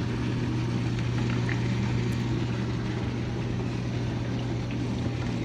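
Whirlpool dishwasher running as it fills with water: a steady electrical hum under an even hiss of water.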